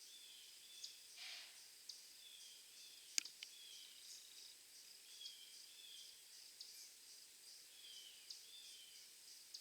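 Faint, quiet outdoor ambience: insects chirping steadily with small repeated bird-like chirps, and one sharp click a little over three seconds in.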